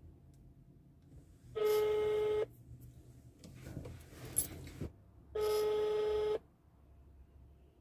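Telephone ringback tone heard through a mobile phone's speaker: two steady one-second tones about four seconds apart, the call ringing with no answer. A brief knock falls between the two tones.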